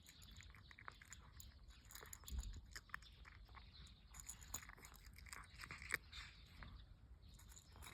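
A cat chewing and crunching its food: faint, irregular crunches.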